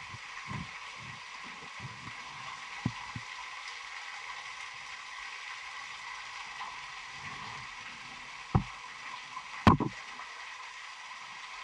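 Steady hiss of running water in a wet cave passage, with a few soft bumps and two sharp knocks near the end as a caver's equipment hits rock.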